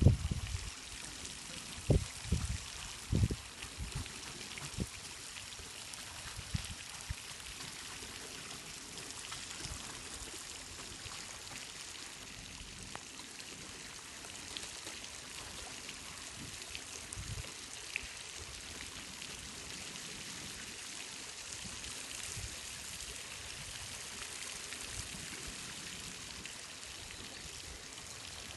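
Steady splashing and trickling of water, with a few dull bumps in the first few seconds.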